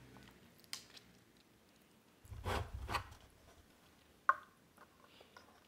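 A plastic tumbler with a straw picked up from the table: a short scuffing rustle with a dull low thud about halfway through, then one sharp click a little later.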